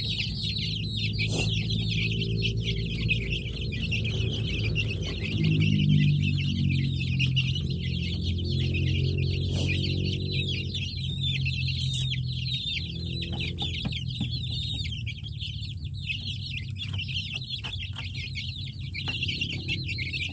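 A flock of young chicks peeping and chirping continuously in a dense chorus. A low hum runs underneath and rises in pitch about five seconds in.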